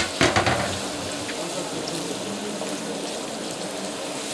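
Beef curry in a large aluminium cooking pot sizzling and bubbling in its oil, a steady hiss, with a few clicks and knocks in the first half second.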